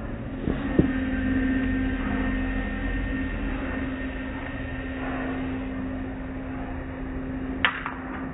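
Steady machinery hum of an automatic car-wash tunnel, heard from inside the car, with one held low tone. There are a couple of knocks about a second in and a sharp click near the end.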